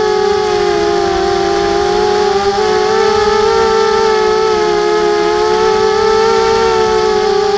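Emax Nighthawk quadcopter's brushless motors and propellers whining in slow flight, heard close up from the camera on the quad; the pitch sways gently up and down as the throttle changes.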